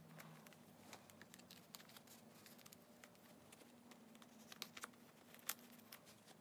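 Faint rustling and light clicks of photocards being slid into the pockets of a plastic binder page, with a few sharper clicks about five seconds in.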